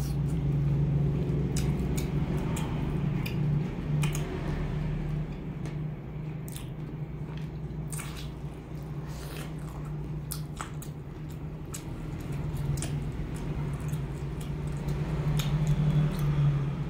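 Close-miked eating of boiled chicken: chewing with wet, squishy mouth sounds and scattered sharp clicks of the lips and tongue, over a steady low hum.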